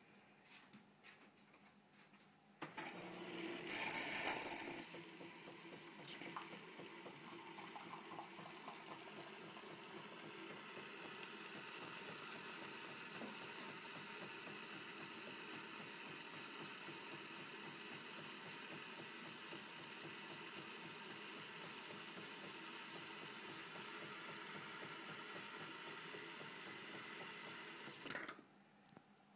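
Jura automatic coffee machine frothing milk, drawing it through a tube from the milk cooler and out of the frothing spout. It starts about three seconds in with a loud burst of hiss, settles into a steady hiss with a hum, and cuts off suddenly near the end.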